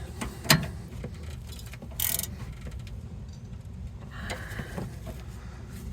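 Hand tools working on a car's rear sway bar end link as its nut is tightened: scattered metal clicks, a short scrape about two seconds in and a brief rasp around four seconds, over a low steady hum.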